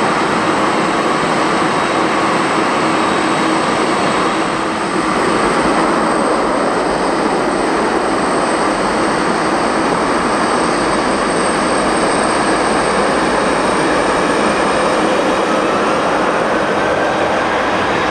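Boeing 747-400's four General Electric CF6-80C2 turbofans running at taxi power as the jumbo jet passes close by: a loud, steady jet roar and whine. The whine rises slightly in pitch in the second half.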